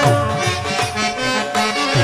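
Live instrumental accompaniment for a stage drama: a sustained reedy melody over regular low tabla strokes.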